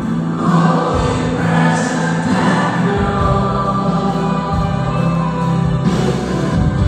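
Background music: a choir singing a gospel-style Christian song over a steady low accompaniment.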